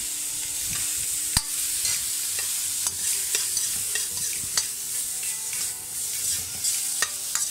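White beech mushrooms sizzling in hot oil in a stainless steel wok while being stir-fried, the metal spatula clacking and scraping against the pan every second or so, with the sharpest clack about a second and a half in.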